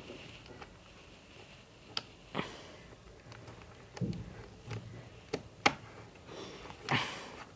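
Scattered sharp plastic clicks and taps, about half a dozen, from a Rubik's-brand 3x3 cube being handled while it is lubed.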